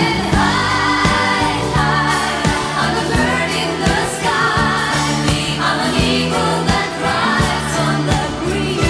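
Background music: a voice singing a wavering melody over held bass notes and a steady beat of about two strokes a second.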